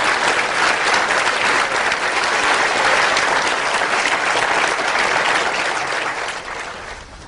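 An audience applauding loudly, the clapping fading out near the end.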